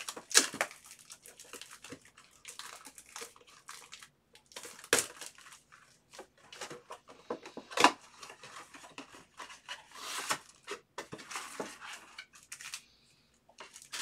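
Cardboard trading-card box being opened and handled by hand: irregular rustling, scraping and crinkling of the box and wrapper, with sharp snaps about half a second in, at about five seconds and near eight seconds. Near the end, a stack of foil card packs is handled.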